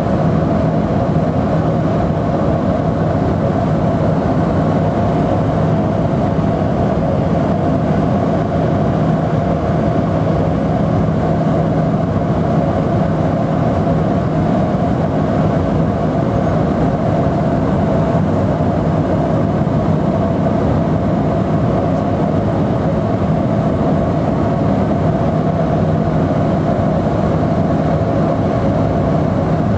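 Steady drone of a de Havilland Canada DHC-6 Twin Otter's two turboprop engines and propellers in cruise, heard from inside the passenger cabin: a loud, even hum with a low steady tone and a higher steady tone above it.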